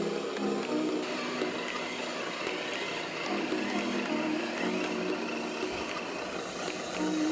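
Hydraulic pump of a custom-converted RC excavator running steadily, under background music with a slow melody.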